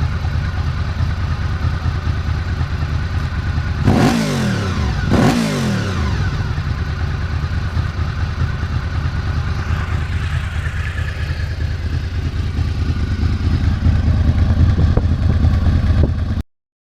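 Honda VFR800 V4 motorcycle engine idling through a slip-on exhaust, blipped twice in quick succession about four and five seconds in, with pitch shooting up and falling back to idle. The sound cuts off abruptly just before the end.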